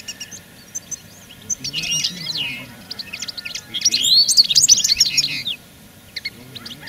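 Small songbirds chirping and twittering in quick high runs, with two busier, louder bursts, the loudest about four to five seconds in.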